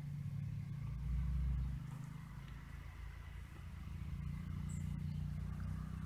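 A steady low motor hum, with a louder low rumble for under a second about a second in.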